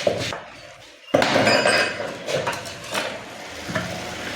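Steel tyre levers and tools clinking and knocking against a motorcycle wheel rim while a new tyre is levered onto it, with a sudden loud clatter about a second in and several sharp knocks after.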